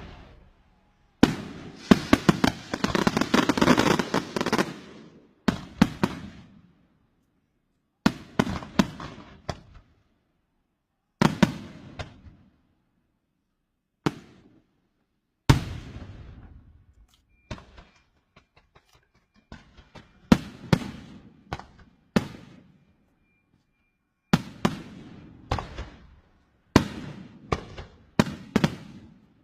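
Fireworks from a cart-mounted display going off in repeated volleys of sharp bangs and crackling, each volley trailing off before the next, with short gaps between. Near the start comes one longer, denser volley of rapid crackling.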